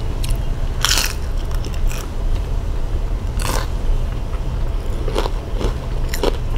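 Close-miked eating: biting and chewing, with sharp crisp clicks about a second in and again about three and a half seconds in, and smaller ones near the end. A steady low hum runs underneath.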